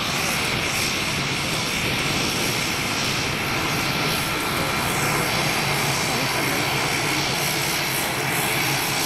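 Pilatus PC-9M's Pratt & Whitney Canada PT6A-62 turboprop running steadily at low taxi power as the aircraft taxis, its propeller turning: an even drone with a steady higher whine.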